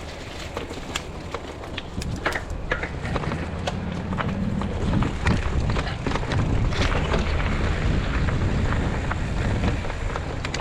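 Mountain bike rolling over a rough, rocky trail: a steady low rumble of tyres and wind on the microphone, with frequent clicks and rattles from the bike, louder from about halfway through.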